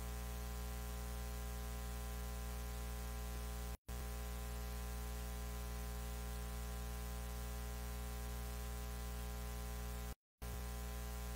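Steady electrical mains hum with hiss on the audio feed. It cuts out to silence twice, briefly: about four seconds in and near the end.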